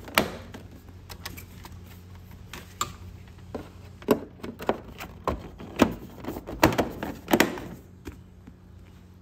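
Plastic body panel of a Honda Super Cub being handled and pressed onto the frame: a string of sharp plastic clicks and knocks, densest and loudest in the second half, then stopping before the end.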